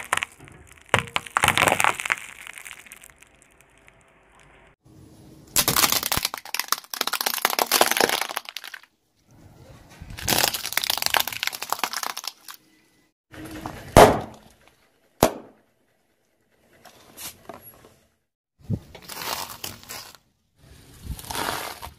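A car tyre rolling over and crushing hard candy lollipops, clear plastic toy pistols and cauliflower florets: a run of separate bursts of crunching, cracking and snapping, each cut off by silence. The loudest is a single sharp crack about two-thirds of the way through, followed closely by a short snap.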